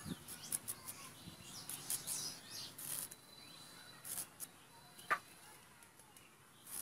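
White radish being peeled against a fixed boti blade: a run of short, crisp scraping strokes as the skin is shaved off, with one sharper crunch about five seconds in.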